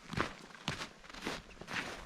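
Footsteps in snow: a hiker's boots stepping at a steady walking pace, four steps about two a second.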